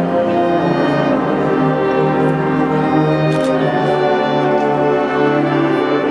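A marching band's brass and saxophones playing sustained chords, the held notes shifting every second or so.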